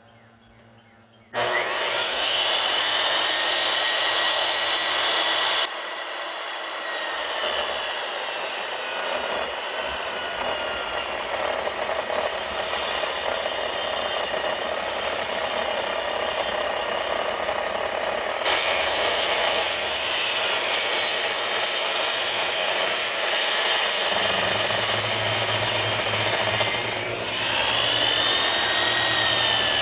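Ryobi 10-inch table saw starting up about a second in, then running and ripping a 2x6 lengthwise with its stock blade near full height, a steady loud whine. Near the end the whine dips and climbs back.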